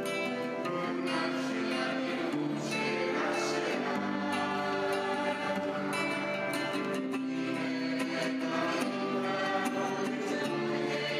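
Background music with voices singing, held notes over a steady accompaniment.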